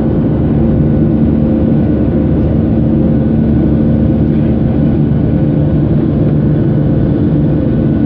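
Jet airliner cabin noise beside a wing-mounted turbofan engine during the climb after takeoff: a loud, steady low drone of engine and rushing air, with a faint steady hum.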